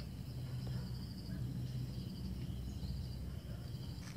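Crickets chirping steadily in the background over a low, steady rumble.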